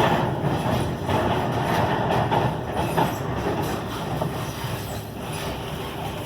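Class 90-hauled intercity train running on the track: a steady rumble and rattle, loudest in the first few seconds and easing off after about four seconds.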